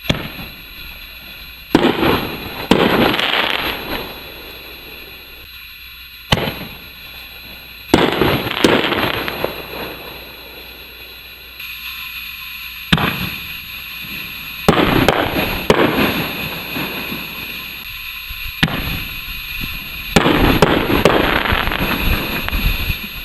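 Aerial canister shells launching and bursting, heard from a distance: a string of sharp bangs a couple of seconds apart, each trailing off in a crackling rumble.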